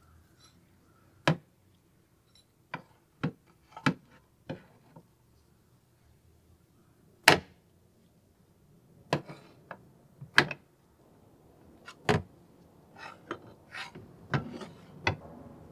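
Metal vise parts being set down into a metal tray of liquid and against each other: a series of separate sharp knocks and clinks with quiet gaps between them, the loudest about seven seconds in and again about twelve seconds in.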